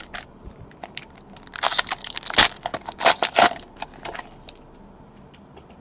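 Crinkling and tearing of a trading-card pack's wrapper, a cluster of loud crackly rustles in the middle with scattered lighter clicks around them.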